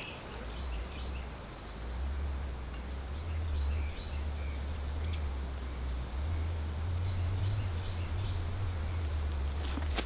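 Outdoor ambience: a steady high-pitched insect drone, with short chirps in small groups, likely birds, and a low rumble underneath.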